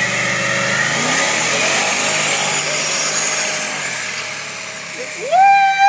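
A Lincoln launched hard from a standing start, its engine at full throttle with a broad hiss of spinning tyres, fading as the car pulls away. About five seconds in, a person lets out a loud whoop that rises and falls twice.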